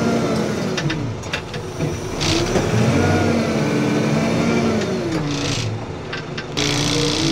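Backhoe loader's diesel engine running, its pitch rising and falling several times as the throttle goes up and down, with a few short clatters.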